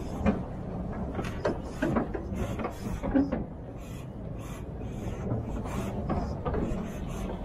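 Heavy timber truck's diesel engine running under a steady low rumble, with irregular knocks and rattles from the truck and its load gear.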